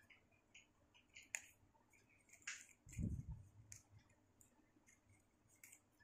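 Faint crackles and rustles of a green coconut leaf strip being folded and fitted by hand, with a soft low thump about three seconds in.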